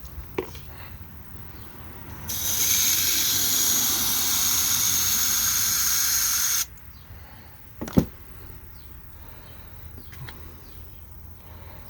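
Water spraying in a steady hiss for about four seconds, switched on and off abruptly, then a single sharp knock about eight seconds in.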